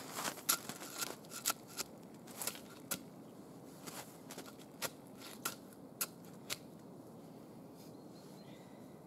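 Crisp crunches and clicks of snow and wood as a cut log section is set upright in the snow against a pine trunk. There are a dozen or so sharp ones over the first six seconds, then only faint rustling.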